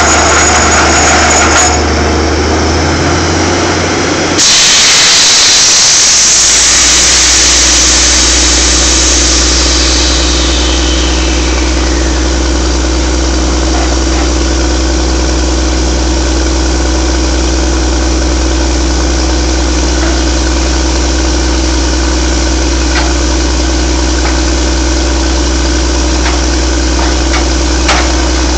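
DTH drill rig's engine running with a steady low hum. A loud hiss starts suddenly about four seconds in and slowly fades away over the next several seconds. A few light clicks come near the end.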